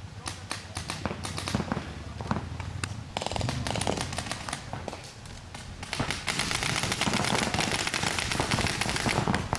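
Paintball markers firing: scattered pops for the first few seconds, then a fast, continuous volley of shots from about six seconds in.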